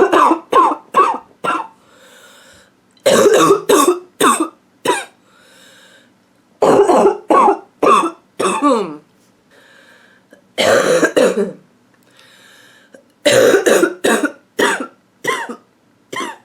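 A woman's barking cough in repeated fits: about five bouts of several quick coughs each, with a drawn-in breath between bouts.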